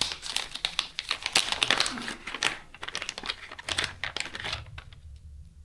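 Plastic packaging crinkling and crackling as it is handled by hand, dense irregular crackles that die down near the end.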